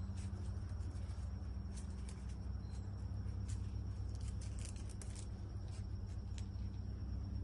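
A puppy's claws ticking lightly and unevenly on pavement as it walks, over a steady low hum; the ticks bunch up about five seconds in.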